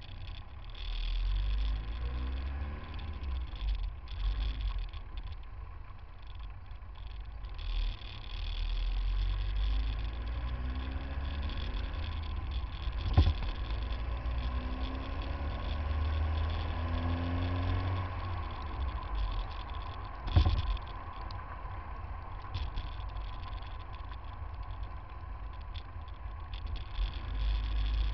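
Car engines and road noise picked up by a camera mounted low on a car's front bumper in stop-and-go traffic: a steady low rumble, with engines rising and falling in pitch as the traffic moves off and slows. Two sharp knocks stand out, one about halfway through and one about two-thirds through.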